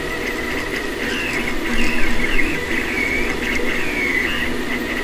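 3D printer's stepper motors whining as the print head moves, the pitch sliding up and down over and over as the velocity-painted G-code speeds the head up and slows it down along the path.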